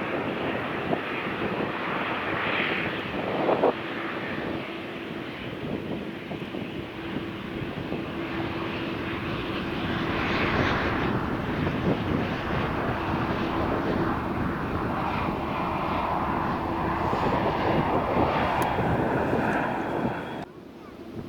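Jet airliner's engines running as it passes, a steady rush with a faint held hum that builds a little louder toward the end, then cuts off abruptly.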